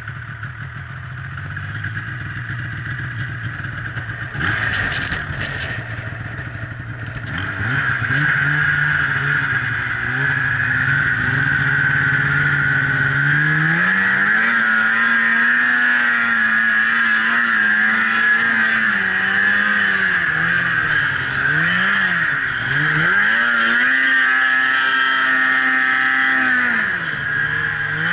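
Polaris snowmobile engine running at low revs for the first several seconds, then revving up and holding at speed. The throttle is let off and opened again twice in the middle and once near the end, and a steady high whine runs over the engine note once the sled is moving.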